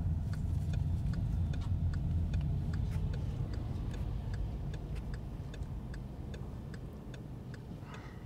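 Car turn-signal indicator ticking steadily inside the cabin, about two to three clicks a second, over low engine and road rumble that fades over the last few seconds.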